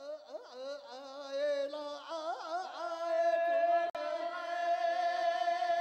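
A solo voice singing in Tibetan opera (lhamo) style: quick warbling ornaments on each phrase, then a long, steady held note from about halfway.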